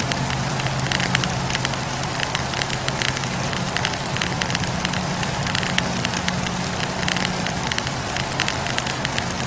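Campfire burning, its firewood crackling with frequent short, sharp pops over a steady hiss and a steady low hum.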